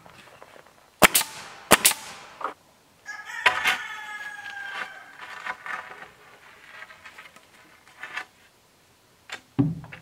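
Two sharp knocks about a second in, then a rooster crowing once for about two seconds.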